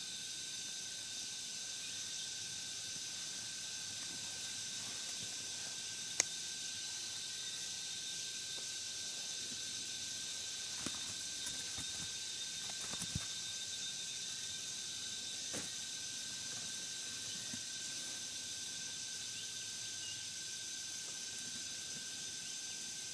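Steady insect chorus of the forest: several unbroken high buzzing tones over a hiss. A sharp click about six seconds in and a few faint knocks and rustles in the middle come from handling the woven mat and bamboo shelter.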